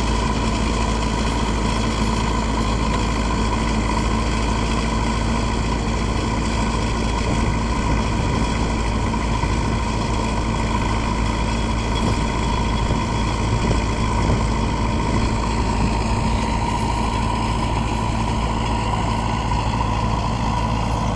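Circular trencher machine and the engine driving it running steadily, with a constant hum and a held higher tone, no breaks or changes in load.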